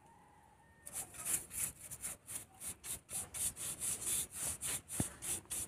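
Dry bristle paintbrush scrubbed back and forth over rough-sawn wood, about four quick strokes a second starting about a second in, brushing borer dust out of the wood's holes.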